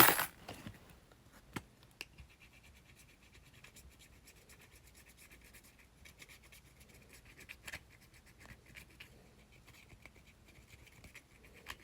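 A coin scratching the scratch-off panel on the back of a gift card to uncover the code: a faint, rapid, steady rasping of many short strokes, starting about two seconds in and stopping near the end.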